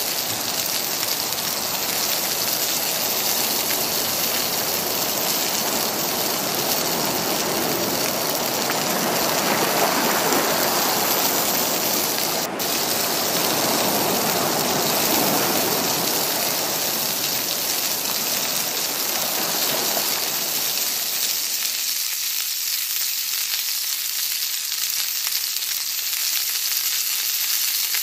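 Water spinach sizzling in hot oil in a steel wok as it is stir-fried with a wooden spatula, a steady hiss. A lower rushing layer under the sizzle drops away about three-quarters of the way through.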